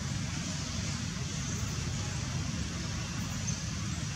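Steady outdoor background noise: a low rumble under an even high hiss, with no distinct events.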